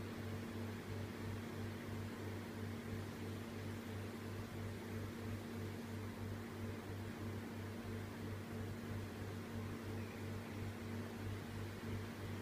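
The twin mixed-flow fans of a Pacific PR-90 kitchen exhaust hood running steadily: a low hum that pulses about three times a second, with air noise.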